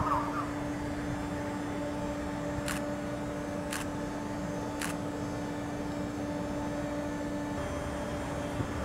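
Steady mechanical hum with a constant low tone, broken by three sharp ticks about a second apart; the tone stops shortly before the end.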